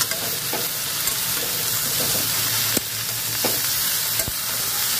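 Potato and eggplant pieces sizzling in oil in a kadai, stirred with a metal spatula that scrapes along the pan and clicks sharply against it a couple of times.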